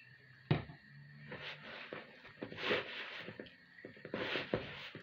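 A hand mixing and squeezing soft yeast dough in a plastic bowl: irregular squishing and slapping strokes, with a sharp knock about half a second in.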